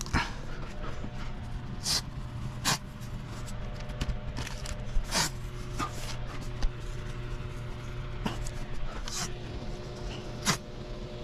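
Masking tape being pulled off the roll and torn while masking, heard as about half a dozen short rasps a second or more apart, over a steady low hum.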